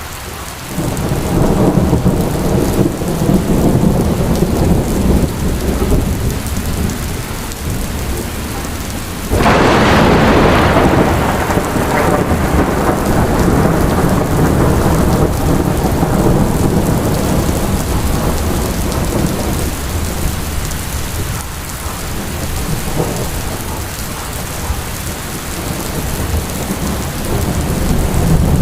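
Heavy rain falling during a thunderstorm, with a steady low rumble throughout. About nine seconds in a loud thunderclap breaks in and rolls away over several seconds.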